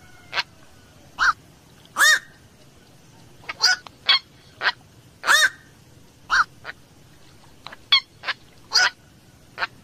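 Black-crowned night heron giving a series of short, croaking 'kwok' calls, about one or two a second at irregular intervals.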